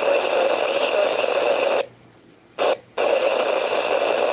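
Ham radio transceiver's speaker giving out bursts of hissing static that cut in and cut out abruptly: a long burst, a very brief one, then another long one. It is typical of the squelch opening on weak, noisy transmissions during the net.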